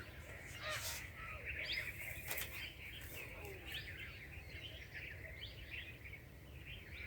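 Small birds chirping over a low outdoor hum, many short twittering calls, with a couple of brief sharp rustles or clicks about a second in and near the middle.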